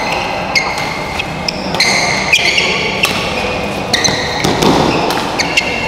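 Badminton rally in a large hall: rackets hitting the shuttlecock in a series of sharp cracks, with short high squeaks of players' shoes on the court floor.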